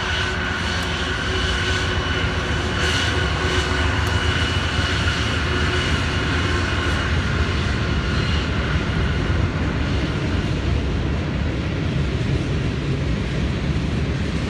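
Norfolk Southern manifest freight train going by at speed: a steady, heavy rumble of diesel locomotives and rolling freight cars. A high whine over it fades out about halfway through, leaving the rumble of the cars.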